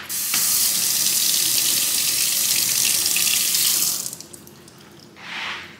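Kitchen faucet running cold water into a stainless steel sink, splashing over a peeled hard-boiled egg held in the stream to rinse off bits of shell. It comes on just after the start and shuts off after about four seconds, with a short softer hiss near the end.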